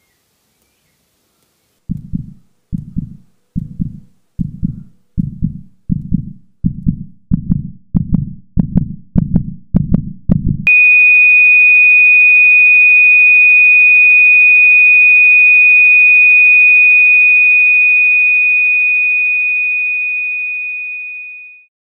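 Heartbeat sound effect: low dull thumps, slow at first and speeding up steadily, about fourteen beats. Halfway through they cut abruptly to a single steady high-pitched tone that holds for about ten seconds and then fades out.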